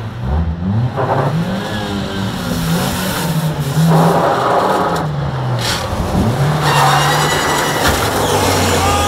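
Banger car engines revving up and down repeatedly as the cars ram and shove each other on dirt, with a louder surge about four seconds in as they collide.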